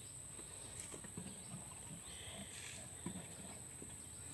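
Faint, scattered soft footsteps and rustling as someone moves through eggplant plants, over a steady high-pitched insect drone.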